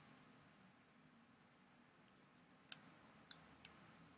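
Three sharp computer mouse clicks in a quiet room, about three seconds in and close together.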